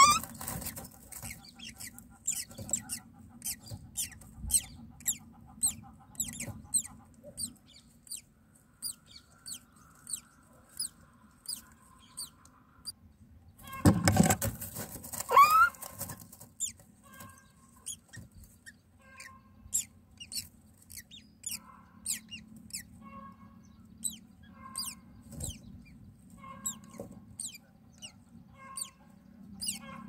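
Common myna nestlings begging with rapid, thin, high-pitched cheeps while an adult myna feeds them at the nest. About halfway through there is a loud burst of rustling in the nest with a short rising call from the adult.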